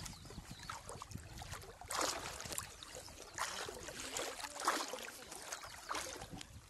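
Legs wading through knee-deep water, sloshing and splashing with each stride, a surge of splashing every second or so.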